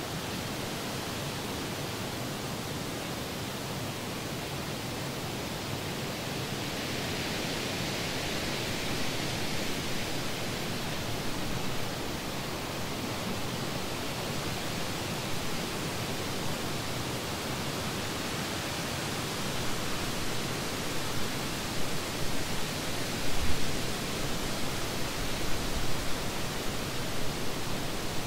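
Steady rushing noise with no tones or rhythm. It grows brighter for a few seconds about a quarter of the way in, and a few low bumps come near the end.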